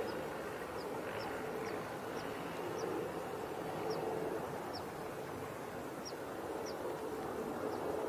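Steady background rumble of distant traffic, with a string of faint, short, high chirps every half second or so.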